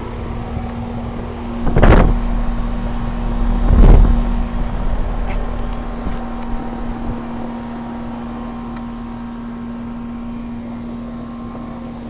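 A 1988 Heil heat pump's outdoor unit running in cooling mode: a steady hum from the compressor and condenser fan. Two brief rumbles of microphone noise come about two and four seconds in.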